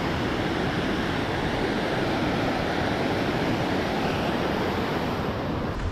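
Steady rushing of a mountain river's white-water rapids tumbling over granite boulders.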